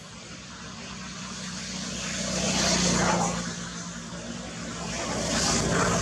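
Motor vehicles passing close by: a low engine hum and road noise swell to a peak about three seconds in, ease off, then swell again near the end.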